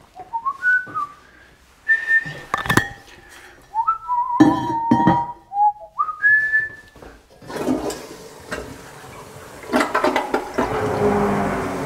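A person whistles a few short notes, with a few clicks and knocks. About seven and a half seconds in the toilet is flushed with a rush of water, and near the end the Sanigrind Pro macerating pump starts with a steady hum.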